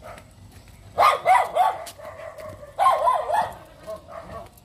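A dog barking in two quick bunches of several barks each, about a second in and again near three seconds.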